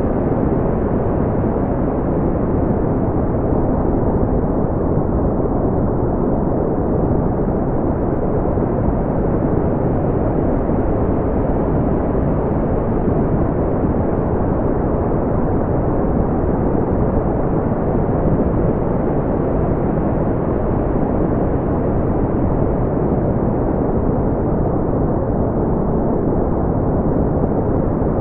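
Brown noise: a steady, deep rumbling hiss weighted toward the low end, with almost nothing in the treble.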